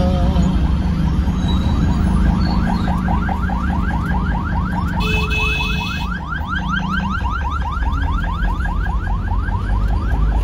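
An electronic vehicle alarm sounding a rapid rising whoop over and over, about five a second, over the low rumble of traffic and engine. A steady, higher tone cuts in for about a second halfway through.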